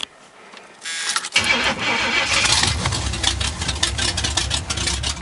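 Pontiac 389 V8 cranked briefly by the starter about a second in, catching within half a second and settling into a steady idle through its headers. The owner thinks the idle sounds like a Ram Air IV cam.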